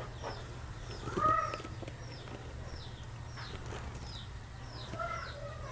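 Small birds chirping in the background: short, high, descending chirps repeated every fraction of a second, with a couple of lower calls about a second in and near the end, over a faint steady low hum.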